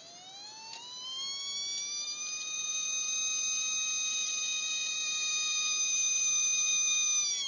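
Tiny 15 mm DC motor from a digital greeting card whining as the bench-supply voltage is turned up. The pitch rises over the first two seconds or so, holds steady at about 3 volts, then drops away quickly near the end as the power is cut.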